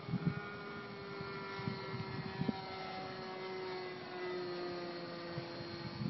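Radio-controlled P-51 Mustang model's O.S. .46 two-stroke glow engine whining steadily in flight, its pitch falling slowly as the plane flies away. A few low thumps hit the microphone.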